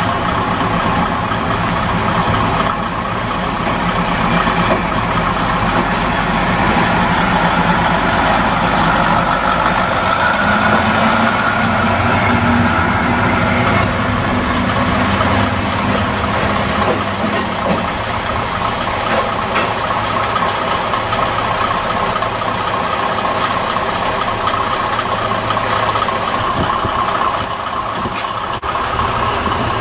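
Diesel engines of JR Shikoku KiHa 58/65 series railcars idling at a standstill, a loud steady running, with a higher hum that swells for a few seconds in the middle.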